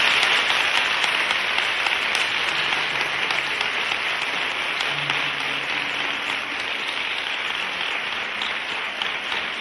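Applause: many hands clapping in a dense, even patter that goes on steadily after the music has stopped.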